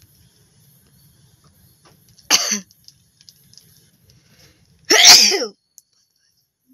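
A person sneezing twice: a short sneeze about two seconds in, then a louder, longer one about five seconds in.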